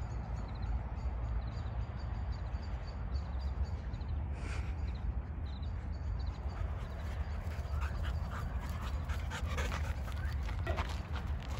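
A dog panting, with quick breaths that grow denser in the second half, over a steady low wind rumble on the microphone.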